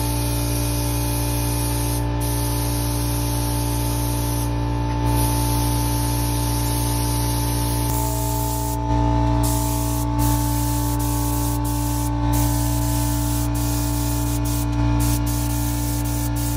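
Gravity-feed spray gun hissing steadily as compressed air atomises paint, with a few short breaks in the hiss. A steady low hum runs underneath.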